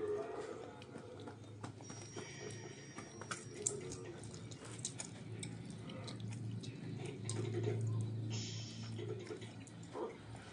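People chewing pizza: soft mouth clicks and smacks with scattered small taps, over a low steady hum, and a short hiss about eight seconds in.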